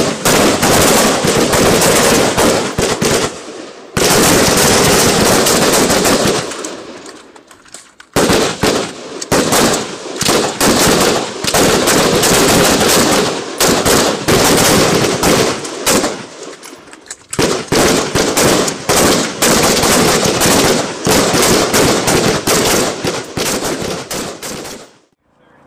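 Rapid gunfire from M4-type carbines, many shots in quick, overlapping strings. The firing breaks off briefly about 4, 8 and 16 seconds in.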